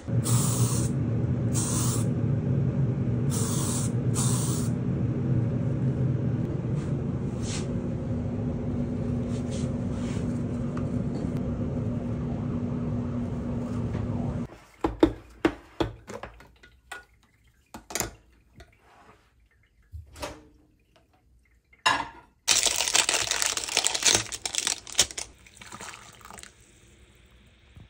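A steady low hum for roughly the first half, then scattered knocks and clicks, and near the end water poured from a glass measuring jug into a mug, filling it for a few seconds.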